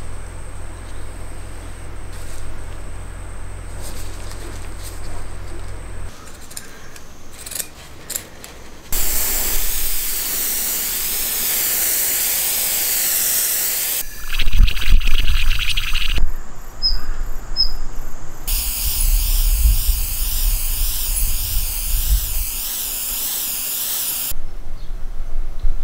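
Airbrush spraying paint onto a wooden lure: a steady hiss of air and paint in two stretches of about five seconds each. Between the stretches there are handling knocks and low rumbles, and a low hum that stops about six seconds in.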